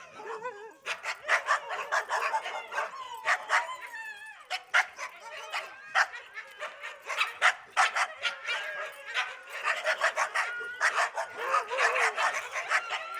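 Dogs barking in quick, dense volleys with hardly a pause, high-pitched sharp barks and yips, mixed with a few whining glides.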